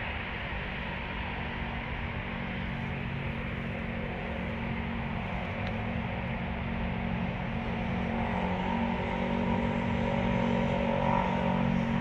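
A steady outdoor hiss with a motor vehicle's engine hum, which grows louder over the last few seconds as the vehicle draws nearer.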